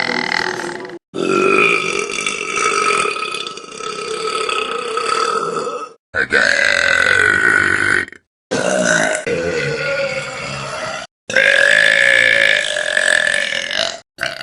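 Long, drawn-out belches by girls and women, one after another, each cut off abruptly into the next. After the tail of one belch there are four full ones, the first lasting about five seconds, and another begins at the very end.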